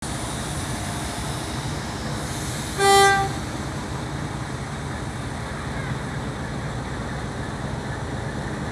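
Diesel locomotive pulling passenger coaches slowly, its engine running with a steady low rumble, and one short horn blast of about half a second, about three seconds in, far louder than the rest.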